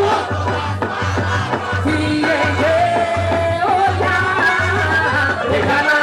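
Festa junina dance music playing loud, with a steady low bass beat under a melody line.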